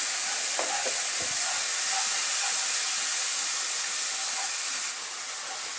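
Spice paste sizzling with a steady hiss in a nonstick wok as a little water hits it, stirred with a wooden spatula: the masala being fried down. It gets slightly quieter about five seconds in.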